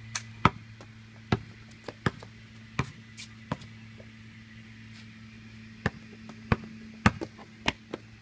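Basketball bouncing on a concrete driveway: single sharp bounces at an uneven pace, a pause of about two seconds in the middle, then several more bounces.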